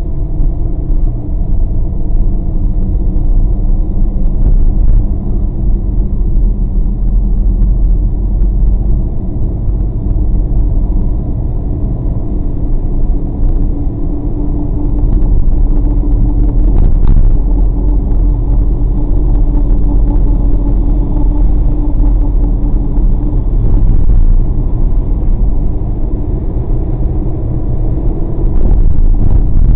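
Steady low rumble of a car driving on wet pavement, heard from inside the cabin: engine and tyre noise with a steady hum.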